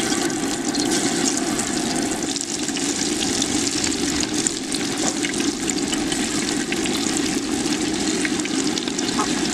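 Batter-coated beef pieces deep-frying in hot oil in a wide aluminium pan: a steady, dense sizzle with constant fine crackling as more pieces are dropped in one by one.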